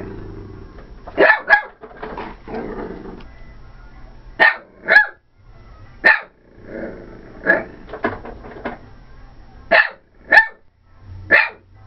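Corgi barking in agitation at a vacuum cleaner: about a dozen sharp, high barks, mostly in pairs a half-second apart, with a lower, rougher sound between some of them.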